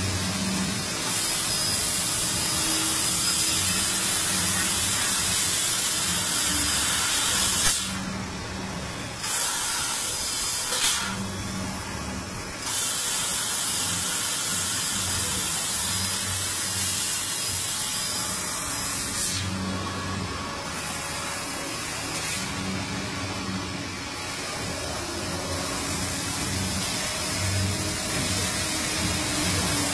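CNC fiber laser tube cutter cutting 1 mm stainless steel pipe: a loud, steady hiss from the cutting head's assist-gas jet that cuts out for a second or two about four times, between cuts, over a low hum from the machine.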